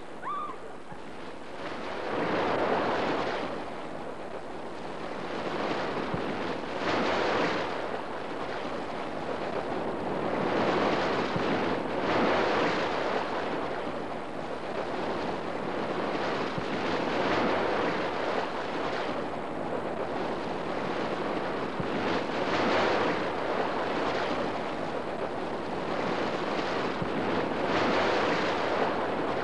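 Sea waves breaking on a shore, the surf swelling and falling back every few seconds.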